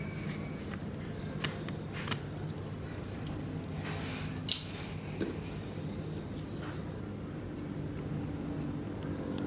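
A few small, sharp plastic clicks and taps from handling a laptop HDD caddy and its optical-drive front cover, the loudest about four and a half seconds in, over a steady low hum.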